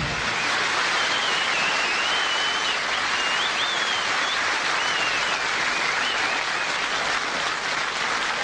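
Studio audience applauding as the song ends. A high wavering whistle rises above the clapping in the first half.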